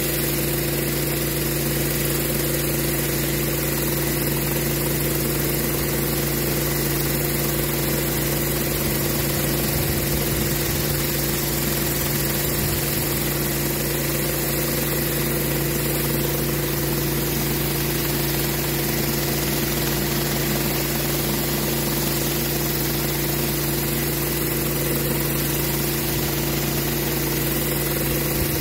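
Pressure washer engine running at a steady pitch while a rotary surface cleaner sprays the rubber wet pour surface, with the hiss of its water jets under the drone.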